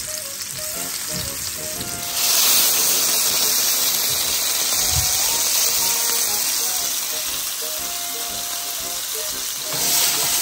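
Marinated boneless chicken pieces sizzling as they pan-fry in hot oil and rendered chorizo fat in a wide pan. The sizzle grows louder about two seconds in and then holds steady.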